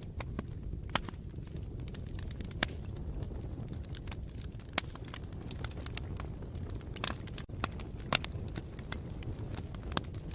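Campfire burning: a steady low rumble of flames with frequent, irregular sharp crackles and pops, the loudest about eight seconds in.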